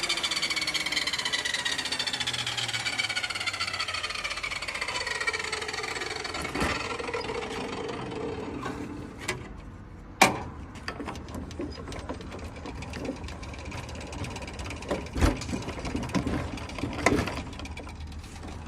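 E-Value ETS-10KN 255 mm table saw's motor and blade coasting down after switch-off, a whine falling steadily in pitch and fading over about eight seconds. Scattered knocks and clunks follow, the loudest about ten seconds in.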